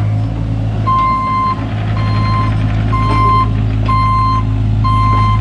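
Backup alarm on a reversing machine, beeping about once a second from about a second in, over a steadily running engine.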